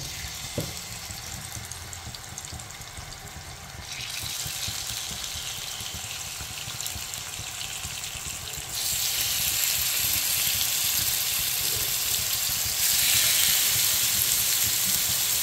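Marinated chicken strips sizzling in hot oil on a ridged grill pan. The sizzle gets louder in steps, about four, nine and thirteen seconds in, as more pieces are laid down.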